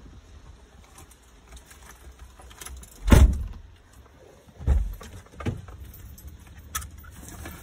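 Handling noises inside a stopped car: scattered clicks and knocks, with a heavy thump about three seconds in and a smaller one just before five seconds.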